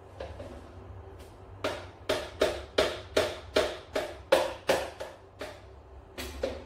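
A spoon stirring briskly in a plastic measuring jug, knocking against its sides in a quick, even rhythm of about three strokes a second. It starts about a second and a half in and runs for about four seconds, with two more knocks near the end.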